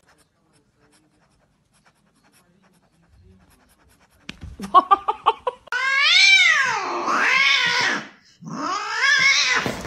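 A cat yowling: after about four seconds of near silence comes a quick run of short calls, then two long, wavering yowls whose pitch swings up and down, one about six seconds in and one near the end.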